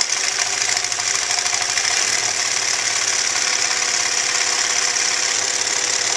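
Sewing machine running fast and steadily during free machine embroidery, the needle stitching up and down in a rapid continuous run.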